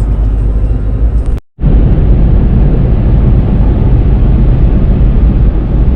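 Steady, loud road and engine rumble inside the cabin of a Chevrolet Colorado pickup while driving, broken by a brief dropout at an edit cut about one and a half seconds in.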